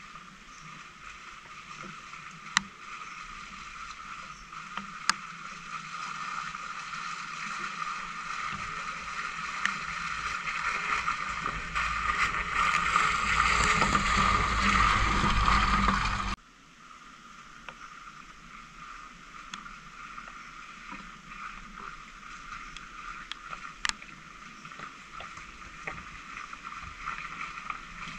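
Suzuki Jimny JB74's 1.5-litre four-cylinder engine pulling slowly over a muddy, stony off-road track, its tyres crunching and ticking on loose stones. It grows louder as it nears and passes close by, then drops off suddenly about halfway to a quieter, steadier engine sound from further away.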